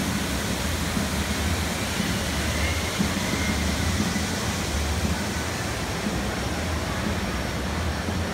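Steady rushing noise with a strong low rumble, unchanging throughout.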